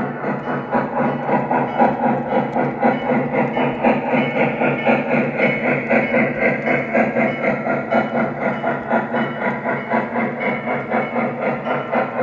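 Lionel JLC 5.0 onboard sound system of a model C&O 2-6-6-6 Allegheny steam locomotive playing steam chuffing in a steady, quick rhythm of about five chuffs a second as the engine backs up.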